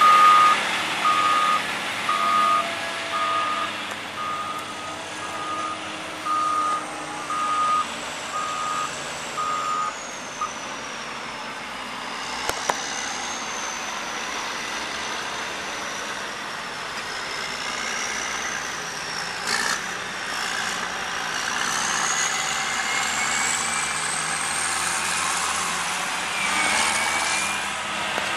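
Cat 14M motor grader working, its diesel engine running under load. A backup alarm beeps about once a second for the first ten seconds, then stops. Later a high whine slides down and back up over the engine noise.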